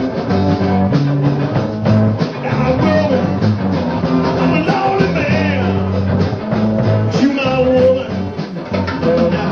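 Live rock band playing: guitars over bass guitar and drums.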